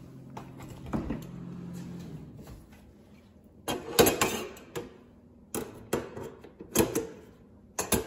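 A few sharp metallic clicks and knocks, the loudest cluster about halfway through, as a stainless steel refrigerator door handle is handled and set against the door onto its mounting pins.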